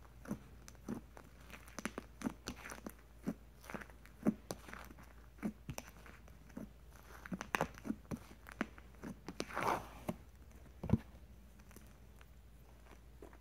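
Fluffy slime being poked and pinched in a plastic tub: irregular small pops and crackles, with the last one about eleven seconds in, after which it falls quiet as the slime is stretched.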